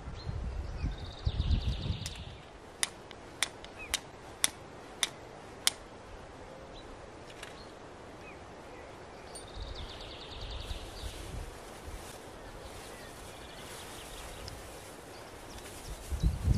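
Flint struck against a steel fire striker to throw sparks onto amadou tinder: six sharp clicks about half a second apart. Later, dry grass tinder rustles as it is handled.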